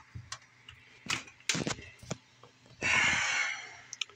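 Handling noises: several sharp knocks and clicks, then, just under three seconds in, a short loud rustling hiss lasting under a second.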